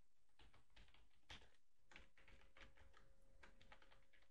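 Faint computer keyboard typing: a run of irregular key clicks, denser in the second half.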